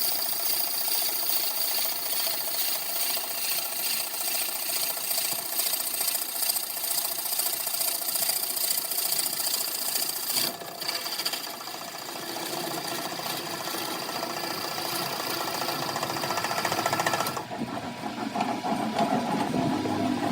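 Wood lathe running while a cutting tool scrapes the spinning workpiece: a steady rasping with a high whine above it. The sound changes abruptly about halfway through and again near the end.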